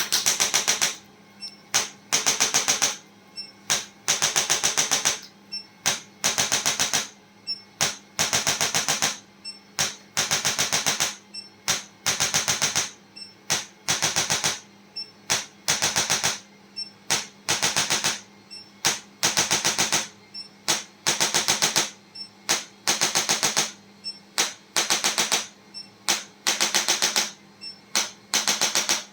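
A handheld percussion device, of the kind a chiropractor uses to tap along a patient's body, firing rapid clicking taps in repeated short bursts of about half a second to a second and a half each, with brief pauses between them.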